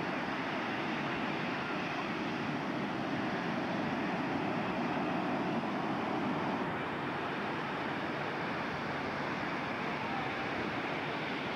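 Ocean surf breaking on the shore: a steady wash of noise, picked up by a camcorder's built-in microphone.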